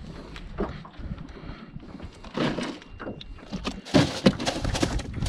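Scattered knocks and thumps as a flounder is put into a boat's plastic cooler and the cooler lid is handled, with a cluster of sharper knocks about four seconds in.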